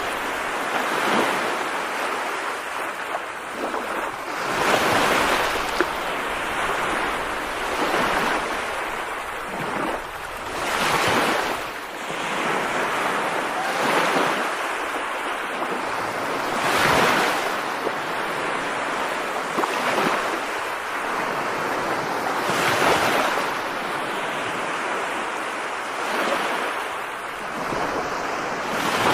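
Rain falling, a steady rush of noise that swells and eases every few seconds as if in gusts.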